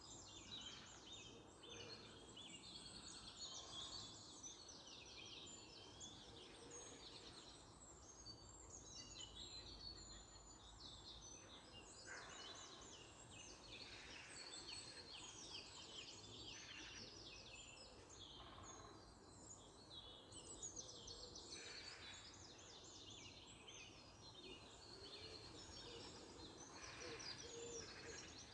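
Faint birdsong: several small birds singing and chirping all through, with quick overlapping trills over a low background hum.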